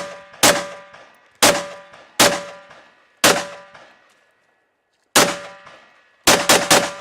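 A string of eight rifle shots, each with a metallic ring that fades after it. The shots come at uneven gaps of about a second, with a pause before a fast triple near the end.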